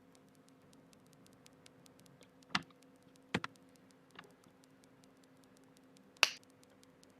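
Mechanical keyboard parts giving a few sharp, separate plastic clicks and snaps, spaced a second or more apart, the loudest about six seconds in, over a faint steady hum.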